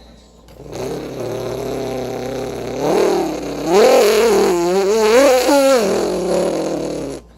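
A person imitating a car engine with his voice: a low steady hum starting about half a second in, then from about three seconds pitch rising and falling several times like an engine revving, cutting off sharply near the end.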